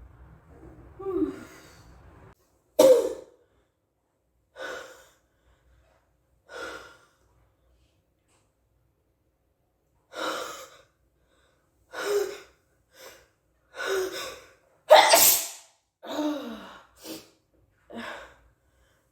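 A person sneezing again and again, with gasping in-breaths between the sneezes. About a dozen short bursts come with gaps between them; the sharpest, loudest ones fall about three seconds in and about fifteen seconds in.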